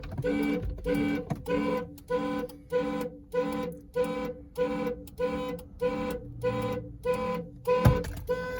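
2001 Ford Expedition's alarm going off, its horn honking in an even pulse about twice a second. A single low thump comes near the end.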